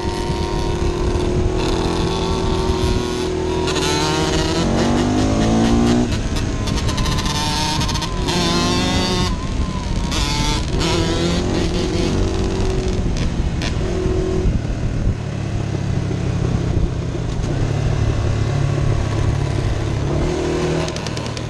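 Quad (ATV) engine running under throttle as it rides, mixed with the engines of dirt bikes close ahead. The revs climb sharply a few times, around four and eight seconds in, between steadier stretches.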